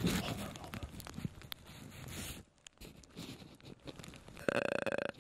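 Rustling and scraping of clothing or gear, with a zipper-like sound, dying down about halfway through. A short pitched sound, about half a second long, comes near the end.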